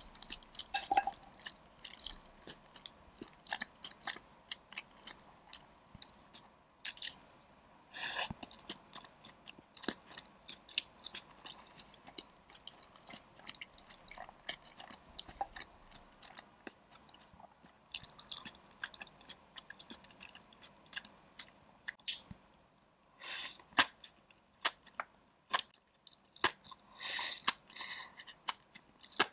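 Close-miked chewing and biting by a person eating a spicy dry pot (mala xiang guo) in a mukbang: a steady run of small wet mouth clicks, with a few louder, longer mouth noises, three times.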